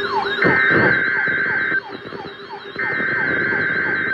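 Weather radio's alarm going off, set off by the NOAA Weather Radio warning-alarm test: a fast repeating falling siren sweep with a higher warble over it, and a steady high beep that sounds twice, each more than a second long.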